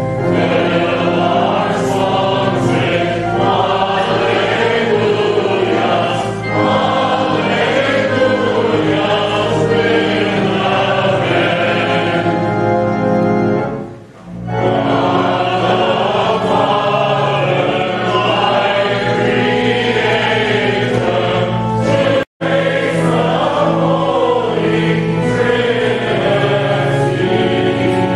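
Group of voices singing a hymn in church, with steady held low notes beneath. The singing dips briefly about halfway through and cuts out for an instant a little later.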